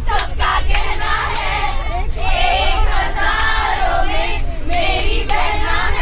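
A group of schoolgirls singing together in phrases, with the bus's low engine and road rumble underneath.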